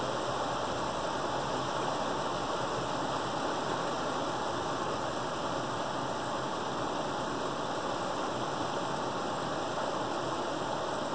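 Creek water rushing steadily through a gap in a beaver dam, pouring down as a small white-water cascade.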